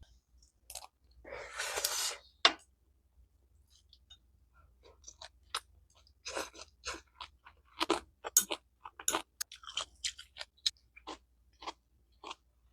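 Close-miked chewing of crisp food, with irregular crunches. About a second in there is a brief rustle and a sharp click, then the crunching picks up and runs as rapid, uneven bites.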